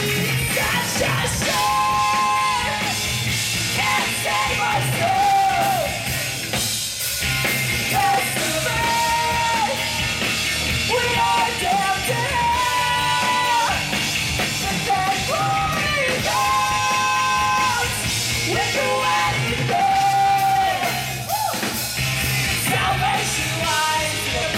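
Live punk rock band playing: electric guitar, bass and drums under a male lead vocal sung into the microphone, heard from among the audience.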